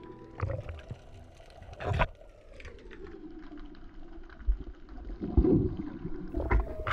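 Water sloshing and gurgling with scattered knocks, the loudest about two seconds in, heard through a snorkeler's camera. Background music comes back in near the end.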